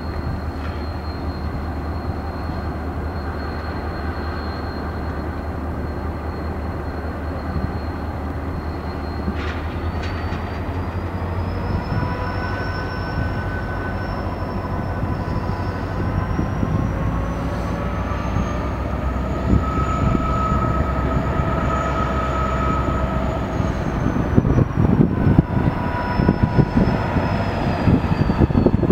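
EMD diesel locomotive running as it slowly approaches pulling freight cars: a steady low engine rumble with a thin high whine that rises in pitch about a third of the way in, holds, and falls back near the end. A few short knocks come near the end.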